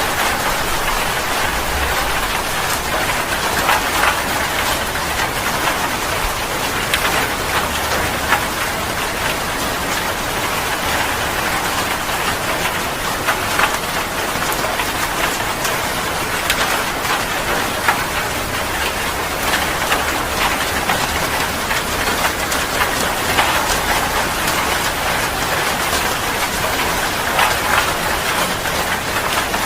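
Heavy rain falling steadily, a dense hiss full of sharp individual drop impacts.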